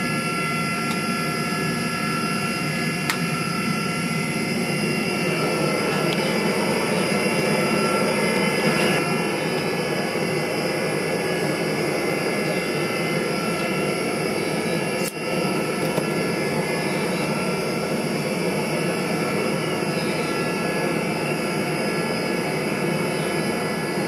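Gas-fired melting furnace's burner running steadily at full heat, with the silver charge in the crucible molten. A single brief click about fifteen seconds in.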